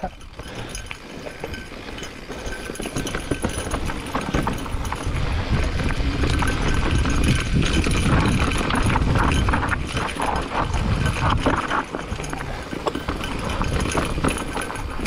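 Electric mountain bike, a Specialized Turbo Levo, rolling fast over a rocky trail: rapid, irregular knocking and rattling of tyres and bike over rock, with heavy wind rumble on the microphone. It grows louder a few seconds in and eases near the end.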